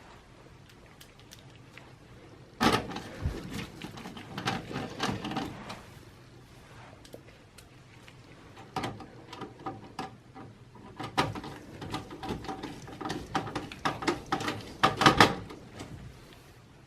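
Phillips screwdriver driving the motherboard screws into a Dell Precision 3620's chassis: three bouts of quick small clicks and scraping metal, the loudest near the end.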